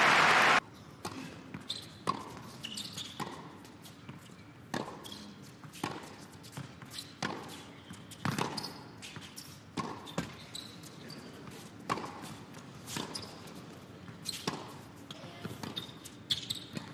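Crowd applause that cuts off abruptly, then a tennis rally on an indoor hard court in a hushed arena: racket strikes and ball bounces every half second to a second, with short shoe squeaks.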